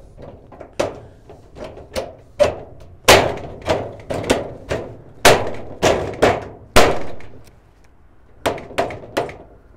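Mallet tapping a steel channel onto the edge of a corrugated steel shed wall sheet: an uneven series of sharp knocks, each with a short ring, snapping the channel over the lugs so it locks in place. There is a short break in the knocking about three-quarters of the way through.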